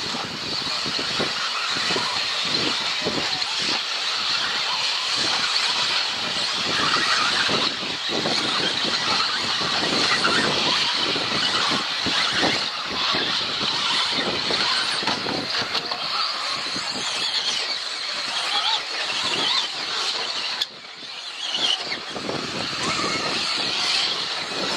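Several 4WD radio-controlled off-road buggies racing together, their motors making a steady high whine under a constant rush of tyre and track noise.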